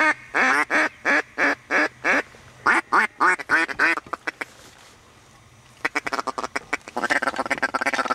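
Mallard quacking: a string of about a dozen loud quacks over the first four seconds. From about six seconds in comes a fast run of short chuckling clucks, the mallard feeding chuckle.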